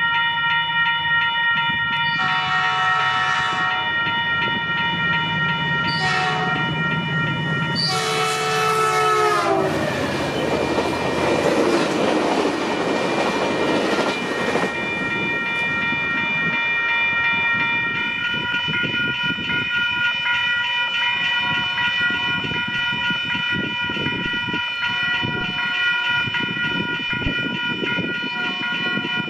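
Caltrain diesel locomotive horn sounding three blasts (long, short, long) over a steadily ringing grade-crossing bell, the last blast dropping in pitch as the locomotive passes. Then the rushing rumble of the bilevel gallery cars rolling by, with the crossing bell ringing on and wheels clicking over the rails.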